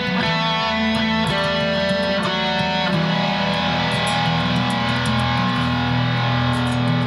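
Solo guitar played through an amplifier in a slow instrumental passage. Several picked notes sound over the first three seconds, then a chord is left ringing.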